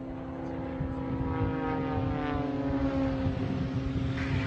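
Propeller airplane's engine running in flight overhead: a steady high engine note with overtones, some of them sagging slightly in pitch partway through.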